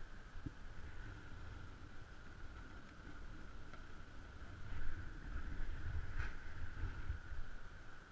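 Wind buffeting an action camera's microphone, a gusty low rumble that grows stronger in the second half, with a few brief rustles as the wearer moves over dry grass. A steady faint high hum sits underneath.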